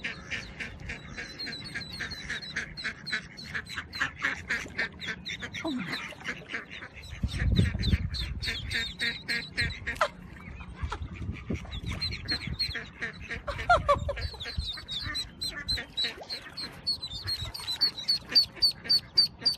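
Mallard ducklings peeping over and over in quick succession, with a duck quacking among them. A low rumble comes about seven seconds in and lasts a couple of seconds.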